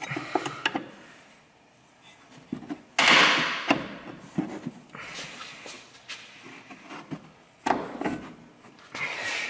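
Steel pry bar levering against the front suspension of an Audi A4 B7 to work the strut assembly loose. Small metal clicks and scrapes, with two sudden louder clanks, one about three seconds in and another near the end.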